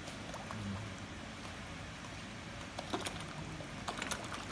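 Koi churning the water at a pond's surface as they crowd together: a steady splashing and lapping, with a few sharper small splashes about three and four seconds in.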